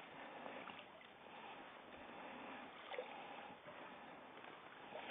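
Faint water noise at the river's edge, with a few light clicks and knocks, the clearest about three seconds in.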